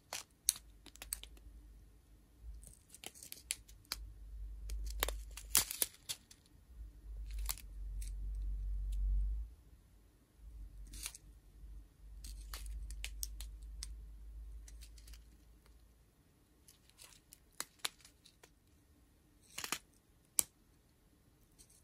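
Small plastic bags of diamond-painting drills being handled and sorted, crinkling in irregular bursts with sharp clicks. A low handling rumble runs through the middle and fades out about three-quarters of the way through.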